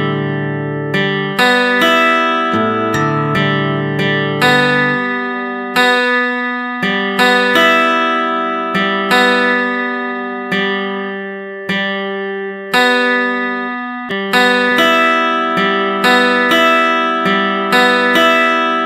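Background music: acoustic guitar playing slow plucked chords, each ringing out before the next.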